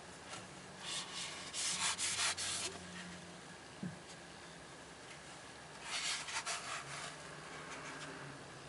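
Rubbing and scraping of watch packaging being handled: a cylindrical watch case sliding out of its tube and then being opened. There are two stretches of scratchy friction, the first about a second in and the second about six seconds in, with a light knock between them.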